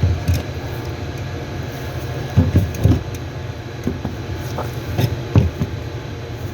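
A few short knocks and clatters as the fuel pump assembly is fitted into the fuel tank: a cluster about two and a half seconds in, then single knocks near four and five seconds. A steady low hum underlies them.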